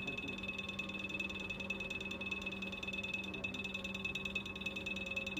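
Steady electrical hum of a small machine with a fast, even fluttering pulse, about nine ticks a second.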